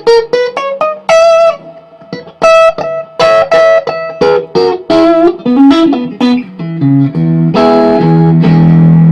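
Electric guitar with single-coil Strat pickups played clean through a Sebago Double Trouble 25-watt 1x12 combo amp with its bright switch engaged: a quick run of picked single notes and double-stops, then a chord struck near the end and left ringing.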